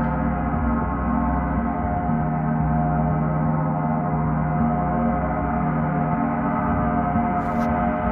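Gong sounding continuously at a steady level: a dense wash of many overlapping ringing tones with no distinct strikes.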